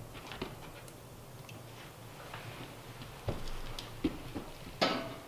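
Wood stove being tended: scattered light knocks and clicks of wood and metal, then near the end a louder metallic clank with a short ring as a fire tool is set back on its iron stand.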